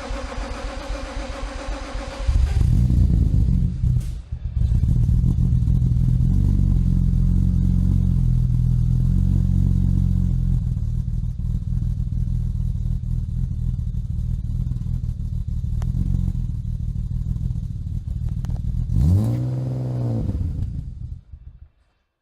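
BMW E36 328i straight-six being cranked by the starter, catching about two seconds in and settling into a steady idle. Near the end the revs rise and fall once in a single blip before the sound cuts off.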